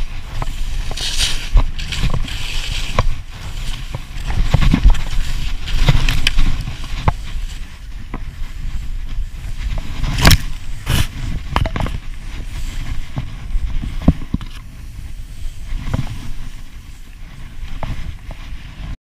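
Skis hissing through powder snow, with wind buffeting the action camera's microphone as a low rumble, and several sharp knocks, the loudest about ten seconds in. The sound cuts off suddenly just before the end.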